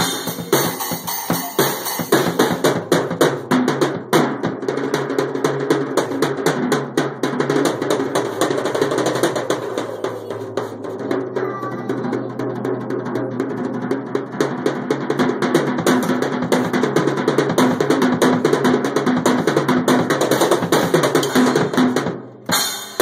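A child's drum kit played continuously in a rapid stream of strokes, including rolls on the snare, stopping suddenly near the end.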